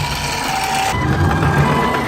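Japanese ambulance two-tone "pee-poh" siren, a lower tone followed about a second in by a higher one, over a steady low rumble.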